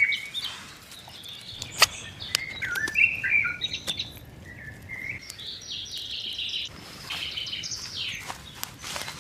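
Birds chirping and calling in woodland, a run of short warbling notes that rise and fall, with a few sharp clicks or snaps, the loudest about two seconds in.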